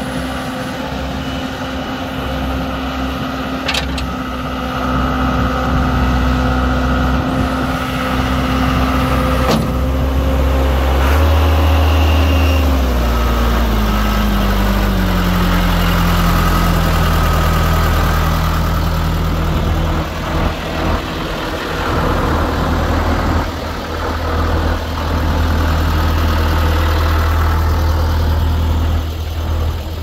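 Case 1846 skid steer's engine running steadily, then slowing to a lower idle, its pitch falling smoothly about halfway through. A couple of sharp clicks sound in the first ten seconds.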